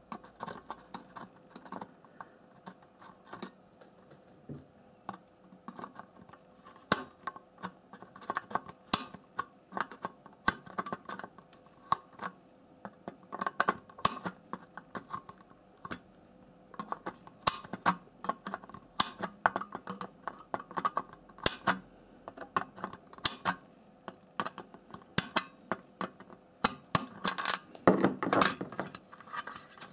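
Side cutter snipping the pins of a soldered DIP RAM chip on a circuit board, one pin after another: a long run of sharp, irregular clicks, some in quick pairs, with a busier stretch of clatter near the end.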